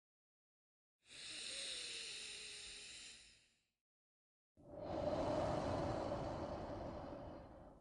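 A person's slow, deep breathing: a thin, hissing breath about a second in, a pause of about a second, then a fuller, lower breath lasting about three seconds.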